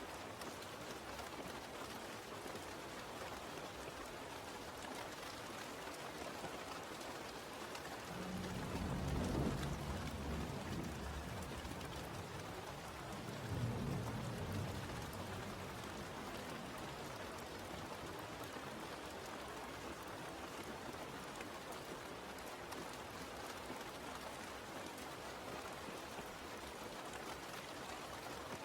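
Steady rain falling, with two low rolls of thunder, the first about eight seconds in and the second about five seconds later.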